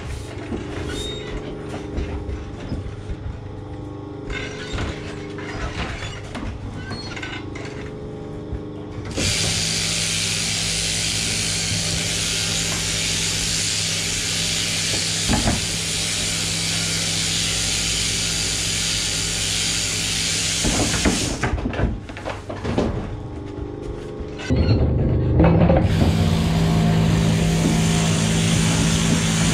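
Sheep-shearing handpiece and shearing plant running with a steady buzz over a low hum. The buzz switches on about a third of the way in, stops about two-thirds of the way through, and starts again, louder, near the end, as the handpiece is engaged and stopped between blows or sheep.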